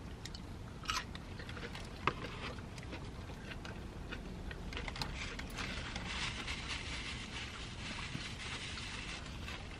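Close-miked eating sounds: chewing a fried mozzarella stick, with two sharp mouth clicks in the first two seconds. From about five seconds in, a paper napkin rustles and crackles as fingers are wiped.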